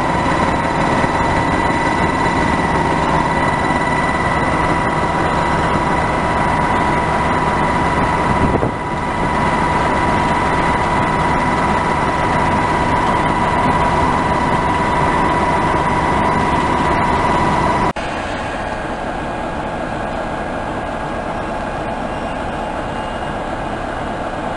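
British Rail Class 46 'Peak' diesel locomotive D182's Sulzer twelve-cylinder engine idling at a standstill: a steady rumble with a steady high whine over it. About three-quarters of the way through, the whine cuts off suddenly and the sound becomes a little quieter.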